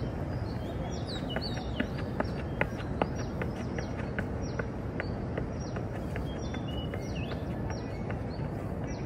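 Songbirds chirping, short high downward-sliding notes about twice a second, over a steady low city rumble. A quick run of sharp taps stands out between about one and four seconds in.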